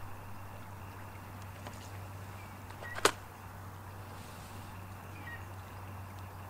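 Quiet outdoor background with a low steady hum and a few faint short chirps, broken by one sharp click about three seconds in.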